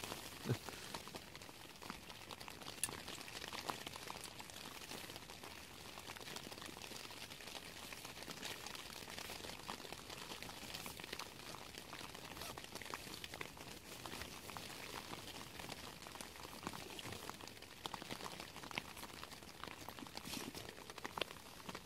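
Rain pattering on the tent's fabric: a steady hiss of many small drop ticks, with a few louder knocks and rustles as gear is handled.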